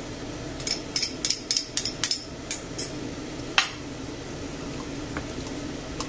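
A metal fork clinking against a small glass bowl, a quick run of about ten light clinks as the saffron-soaked wine is knocked out into the pot, then one sharper clink about three and a half seconds in. A steady low hum runs underneath.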